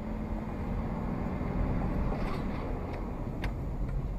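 Steady road and engine rumble of a moving car, heard from inside the car, with a few faint ticks in the second half.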